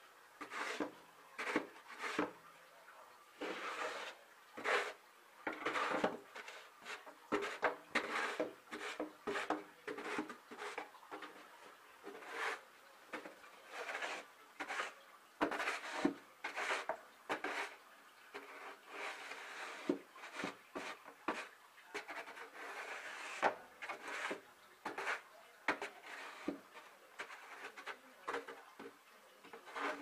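Plastic snow shovel scraping and pushing wet snow and slush across paving, in repeated uneven strokes with short knocks of the blade, about one or two a second.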